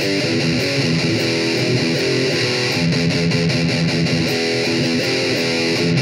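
Electric guitar played with a pick: a steady, loud riff of quick notes that change several times a second.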